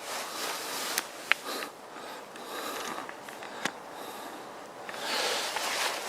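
Small fire in a Swiss army volcano stove crackling with a few sharp pops, while two swells of rushing air feed it oxygen to get it burning.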